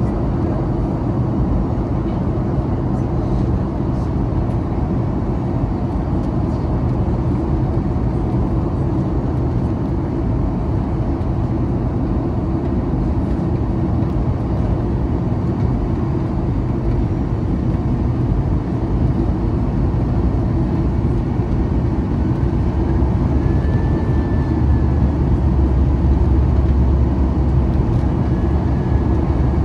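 Cabin noise inside a Boeing 737-800 airliner: a steady low rumble of its CFM56-7B engines and airflow that grows a little louder and deeper over the last few seconds.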